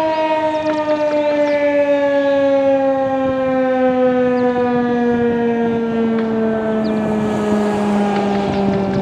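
Federal Signal 2001-DC electromechanical warning siren winding down after its alert signal, its loud tone falling slowly and steadily in pitch.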